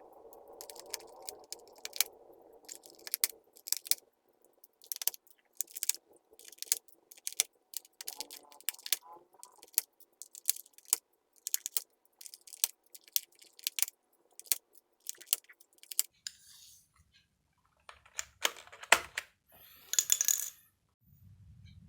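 Hard plastic keyboard parts, keycaps above all, clicking and clattering against the board and a hard surface: a string of sharp clacks, about two a second, with a short scraping rustle near the end.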